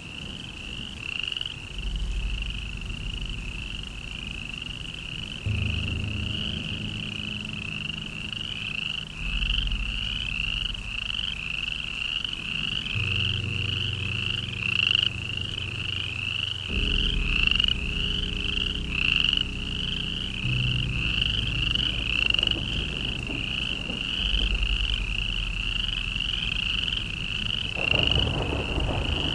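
Background ambience: a steady high chirping pulses about three times a second over low sustained drone notes that shift every few seconds.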